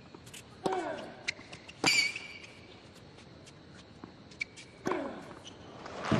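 Tennis rally on a hard court: crisp racket strikes on the ball, about three loud ones, some followed by a short grunt, with lighter ball bounces and shoe squeaks between. Crowd applause swells in at the very end as the point ends.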